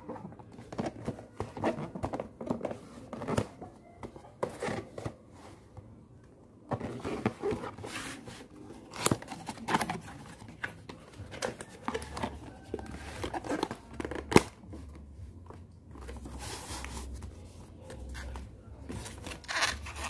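Cardboard packaging being handled and opened: irregular rustling, scraping and tapping of the box and its flaps, with one sharp knock about two-thirds of the way through.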